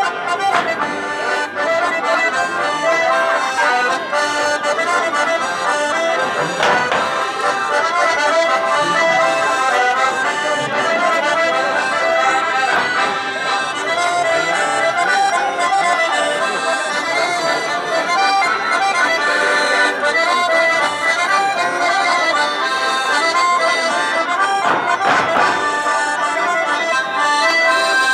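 Accordion playing a traditional Auvergne folk dance tune, steady and without a break.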